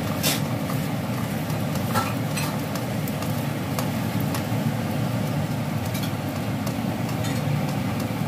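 Glutinous rice flour pancake sizzling in oil in a non-stick frying pan, a spatula pressing it flat with a few short scrapes and taps, under a loud steady low hum.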